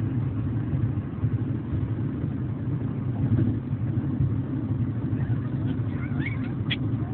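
Steady low rumble of a vehicle. Near the end come a few short, high whimpers from fussy chihuahua puppies.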